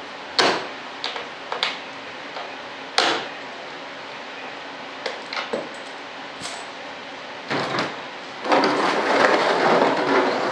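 Scattered sharp knocks and cracks as a composite wing part is worked loose from its mold. From about two seconds before the end, a louder stretch of rough crackling and scraping follows as the part comes free and is pulled off the mold.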